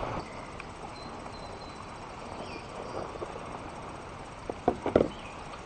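Kayak paddle knocking against the kayak's hull in a quick cluster of hollow knocks about four and a half to five seconds in, over a quieter steady background.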